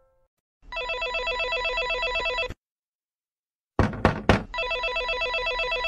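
Electric doorbell ringing twice, each ring a steady rapid trill of about two seconds, with three loud sharp sounds in the short gap between the rings.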